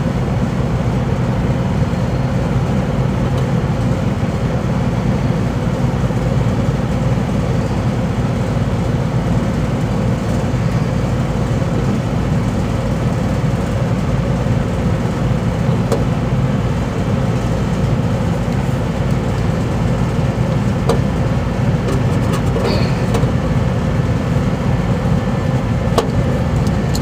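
Steady low hum of rooftop air-conditioning equipment running, with a few light clicks of pliers on wire in the second half.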